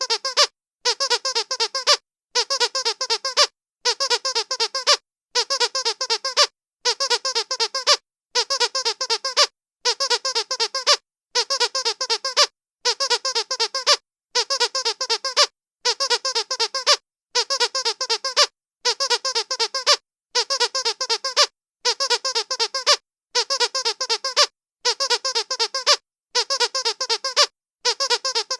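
Rubber squeaky dog toy squeezed rapidly, each run of quick high squeaks lasting about a second, repeated over and over with a short silence between runs, about every second and a half.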